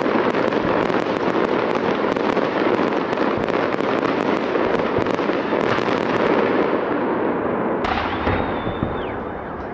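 A large fireworks salute: a dense, continuous rumble of many blending bursts, crackling with sharp pops throughout. Near the end a sudden bang is followed by a high steady whistle of about a second that drops away.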